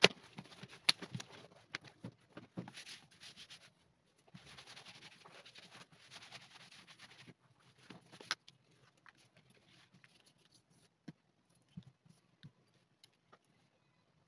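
Hand handling sounds: a soft leather hide rustling and sliding as it is spread over a cutting mat, with light clicks and taps; after about eight seconds only a few sparse taps remain.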